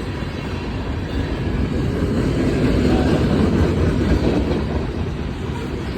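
Freight train rolling past: steel wheels on the rails and the rumble of its rear helper (pusher) diesel locomotives. It grows louder about two seconds in and eases off near the end.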